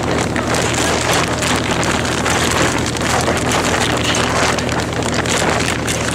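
Wind buffeting the microphone, a loud steady rushing noise with a low steady hum underneath.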